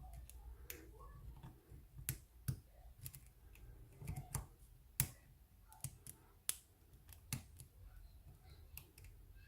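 Short hook pick and tension wrench working the pin stack of a brass padlock: faint, sharp clicks at irregular intervals as the pins are lifted and set.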